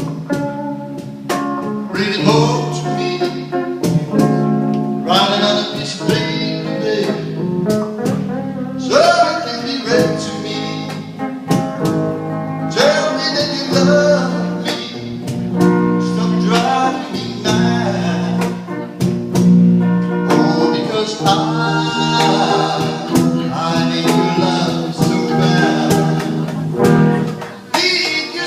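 Live band music: a singer over guitar accompaniment, playing a slow song.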